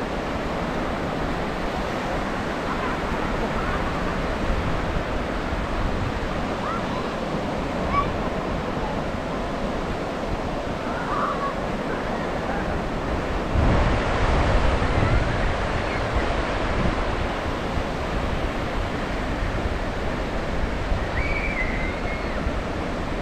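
Ocean surf breaking steadily on a sandy beach, with a heavier wave surging in about halfway through.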